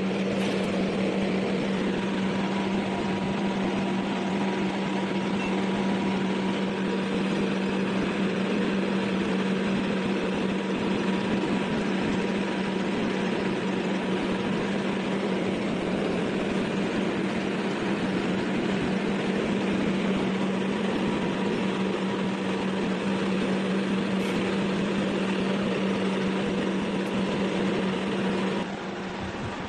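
Machinery running steadily, with a constant low drone and a faint high tone over an even noise; the level drops suddenly about a second before the end.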